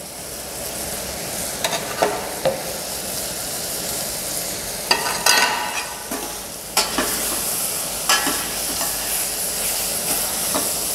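A metal ladle stirring chopped tomatoes in a stainless steel pan, knocking and scraping against the pan several times, over a steady sizzle of the tomatoes sautéing.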